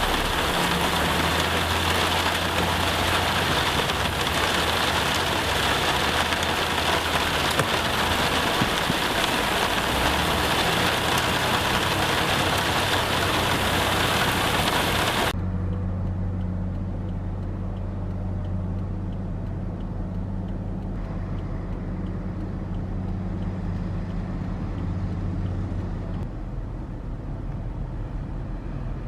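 Diesel engine of heavy construction machinery running with a steady low drone. For the first half it sits under a loud even hiss that cuts off abruptly, leaving the engine alone.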